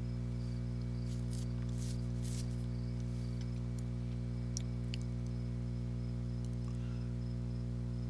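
Steady low electrical hum with several even overtones, unchanging throughout, with a few faint clicks and ticks over it.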